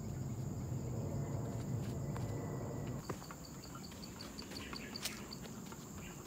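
Forest insects droning steadily at a high pitch, with a quick run of about a dozen high chirps in the middle and a few footsteps on a dirt trail. A deep rushing noise, the loudest sound, stops about three seconds in.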